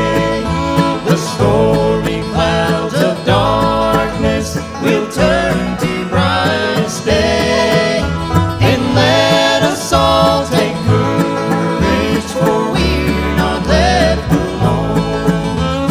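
Bluegrass band playing live: banjo, mandolin, fiddle and acoustic guitars over an upright bass keeping a steady beat.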